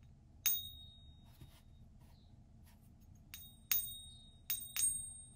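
Silver coin ping test: an American Silver Eagle tapped with another coin. One ping comes about half a second in and four more follow in quick succession near the end, each a high, clear ring that hangs on for up to a second and a half, the long ring expected of genuine silver.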